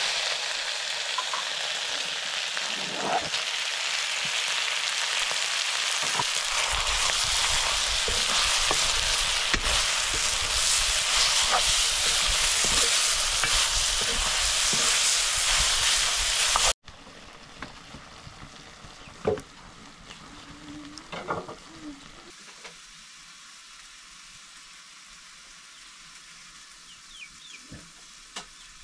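Buffalo-meat curry frying in a pan with a loud, steady sizzle, with light knocks of a utensil in the pan. About two-thirds of the way through it cuts suddenly to a much quieter stretch with only a few soft knocks.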